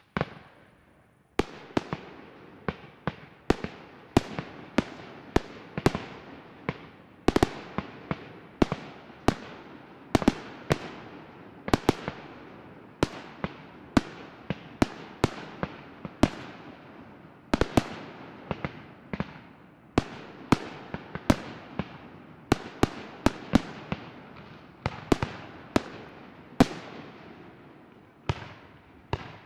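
Aerial firework shells bursting in quick succession, about one or two sharp bangs a second, each dying away in a rolling echo, with smaller pops between.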